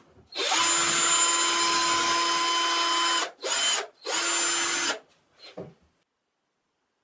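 Power drill spinning a mixing paddle in a plastic cup of clear liquid, running as a steady motor whine. It runs for about three seconds, then stops and runs again in two short bursts.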